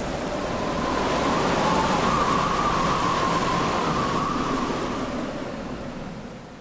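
A steady rushing noise like rain or surf, with a faint wavering tone running through it. It swells to its loudest about two seconds in, then fades out near the end.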